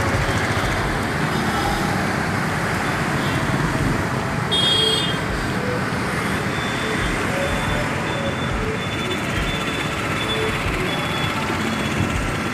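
Steady street traffic noise from cars and motorbikes passing, with a short high horn toot about four and a half seconds in.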